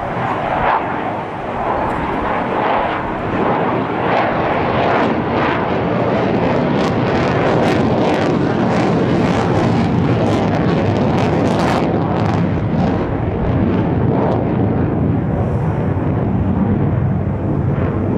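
Lockheed Martin F-35A Lightning II's single Pratt & Whitney F135 turbofan in afterburner, a loud, steady jet noise with a crackling rasp through the middle as the fighter climbs and turns overhead.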